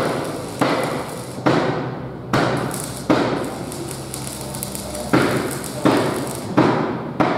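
Hammer blows on metal in the workshop, about one a second, each ringing and dying away, with a two-second pause after the fourth of about eight strikes.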